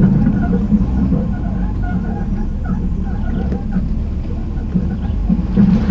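Jeep Gladiator crawling over a rocky dirt trail, heard through a GoPro mounted on its bumper: a steady low engine drone with the very noisy bumper knocking and rattling over the bumps.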